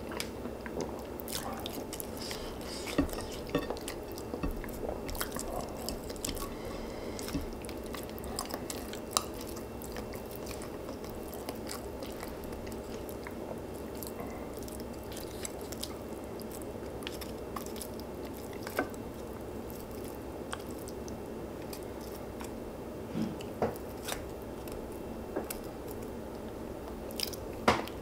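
A person chewing and biting food, with occasional crunches and many short, sharp clicks.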